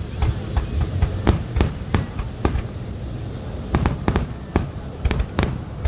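Fireworks grand finale: aerial shells bursting in a quick, irregular string of sharp bangs over a continuous low rumble, with a cluster of bangs near the end.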